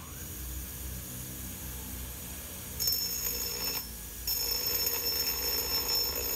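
Bench grinder running with a steady hum while a steel stake anvil's face is pressed against its stone wheel in two passes, a short one about three seconds in and a longer one from just past four seconds, each bringing a high whine and hiss of steel being ground.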